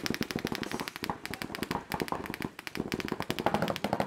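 Paintball markers firing in rapid streams, many sharp pops a second, with short breaks between strings.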